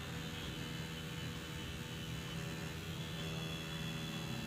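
Tattoo machine running with a steady hum as its needle fills in lettering on practice artificial skin.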